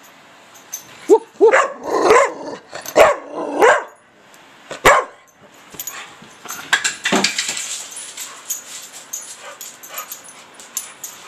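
A dog barking: a quick run of about six short, excited barks in the first few seconds, then rustling and crinkling as it snatches a crinkly wrapper.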